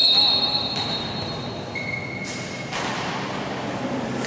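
Basketball gym during a stoppage in play: a long, steady high-pitched tone lasting about two seconds, overlapped near its end by a shorter, lower tone, over the echoing background of the hall.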